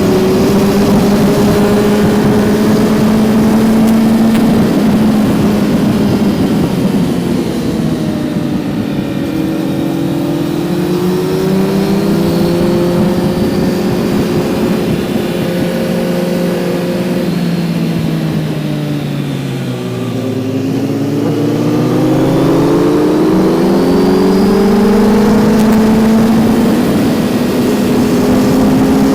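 Kawasaki Z900's inline-four engine under way. Its revs hold steady, then fall for over ten seconds as the bike slows, bottoming out about twenty seconds in, then climb again as it accelerates away and level off near the end.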